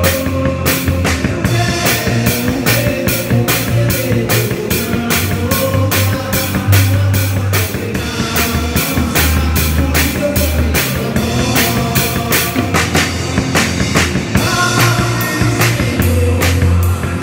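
Rock band playing live, heard close to the drum kit: drums and cymbals strike a steady beat, about three hits a second, over electric bass and guitar.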